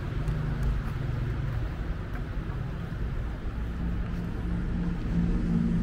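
Steady road traffic noise: a low rumble of passing vehicles, with an engine drone growing louder near the end.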